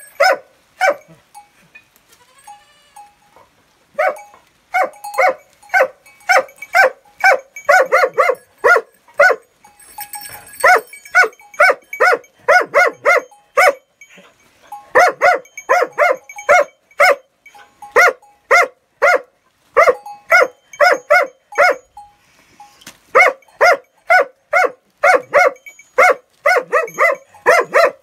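Hound barking over and over in quick runs of about two to three barks a second, each bark short, with brief pauses about halfway through and again near the end.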